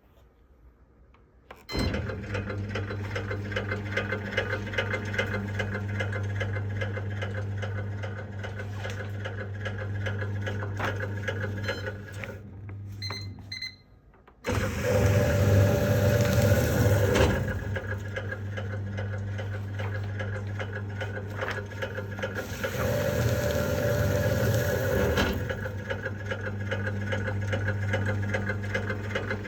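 MEIKO MSV-P440F spiral-cut office shredder's motor and cutters running with a steady hum and a rattle that the seller lists as an abnormal noise. It starts about two seconds in, stops briefly halfway, then restarts. Two louder, rougher stretches of a few seconds each follow.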